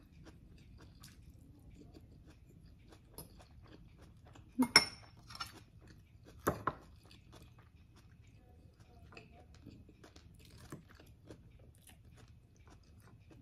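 A person chewing and crunching food during a meal, with cutlery clicking against a plate. Two louder sharp clinks of cutlery on dishes come about five seconds and six and a half seconds in, the first with a brief ringing tail.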